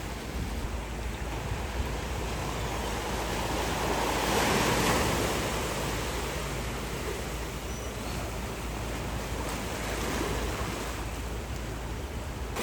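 Pacific surf washing against a rocky shore: a swell builds and breaks to its loudest about four to five seconds in, then eases back to a steady wash.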